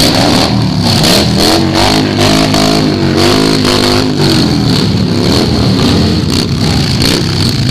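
Motorcycle engines running and being revved close by, the pitch rising and falling several times through the middle.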